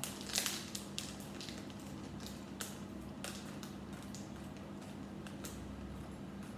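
Faint scattered clicks and crinkles of hand handling as an item is carefully peeled off a magazine's cover, over a steady low hum.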